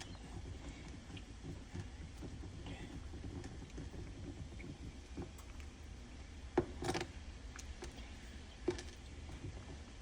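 Low, quiet steady room hum with a few faint clicks and knocks, the clearest about two-thirds of the way through.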